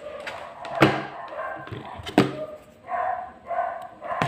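Pliers snapping sharply twice, about a second in and again a second later, as a thin supply wire is cut and its end stripped, with softer handling noise between.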